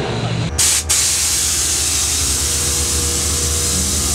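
A car engine running for about the first half second, then an abrupt change to a steady, loud hiss over a low hum that lasts the rest of the time.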